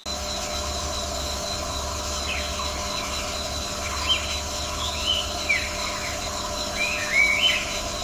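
Forest ambience of a steady background hiss and low rumble, with short bird chirps scattered through it, a few around the middle and a small cluster near the end.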